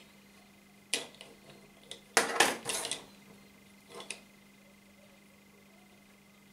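A small cutting tool and a plastic fishing-line spool being put down and moved on a wooden tabletop. There is a sharp click about a second in, then a short run of clattering knocks, the loudest part, between two and three seconds in, and two more clicks near four seconds.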